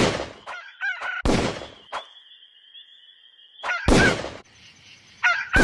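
Cartoon sound effects of a rooster crowing, cut off again and again by pistol shots: four shots, with the longest, steady crow held for about two seconds in the middle.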